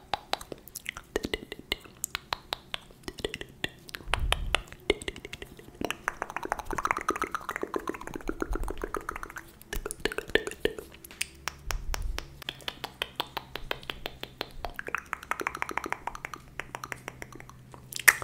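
ASMR mouth sounds close to a microphone: a quick run of wet clicks and smacks of the tongue and lips, with softer hissy stretches between them.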